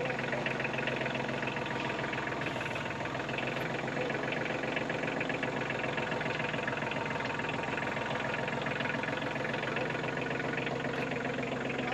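Kubota compact tractor's diesel engine running at a steady speed.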